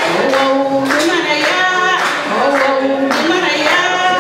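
A woman singing into a microphone without instruments, in long held notes, with steady rhythmic hand clapping about twice a second.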